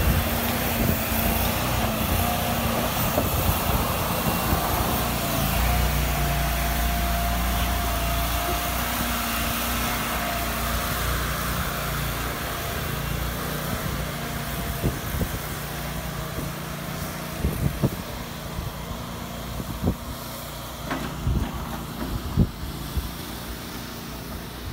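Stand-on compact tracked loader's small engine running steadily, fading as the machine drives away, with several sharp knocks in the second half.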